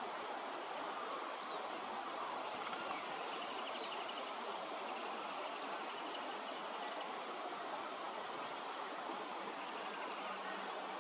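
Steady outdoor background hiss with a thin, high, continuous drone, and a few faint short chirps now and then.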